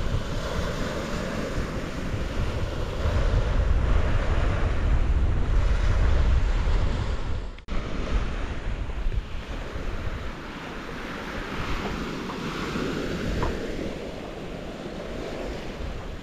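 Sea waves and wind, with wind buffeting the microphone as a heavy rumble that is strongest in the first half. The sound cuts out for an instant about halfway through.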